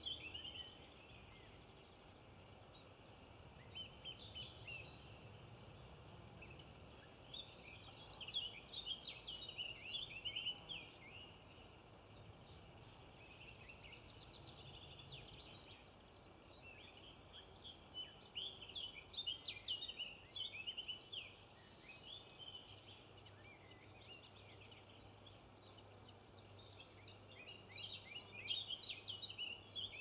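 Small songbirds twittering in bursts of quick, high chirps and trills every few seconds, over a faint steady low background rumble.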